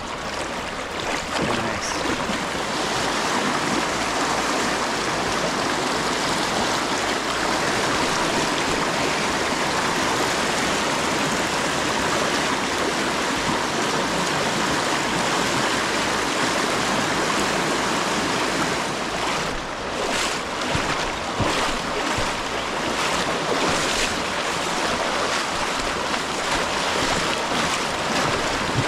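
Steady rush of river water flowing close to the microphone, with a few brief rustles or knocks about two-thirds of the way through.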